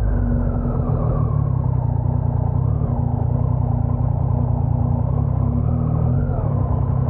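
Motorcycle engine running steadily at a constant low speed, heard through a helmet-mounted lavalier microphone.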